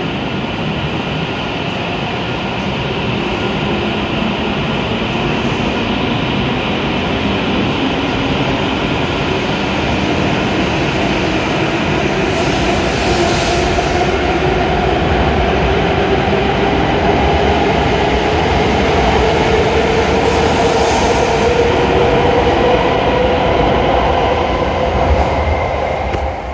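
Hokuriku Shinkansen E7/W7-series bullet train pulling out of the station and accelerating past the platform, its motor whine rising steadily in pitch over a rumble. It grows louder as the cars go by, with brief hissing twice, then falls away about 25 seconds in as the last car leaves.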